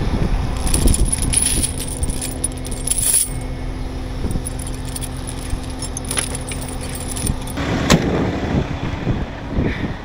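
Steel tire chains clinking and jangling as they are handled and hung on a heavy tow truck's outer dual tires, over the truck's diesel engine idling steadily.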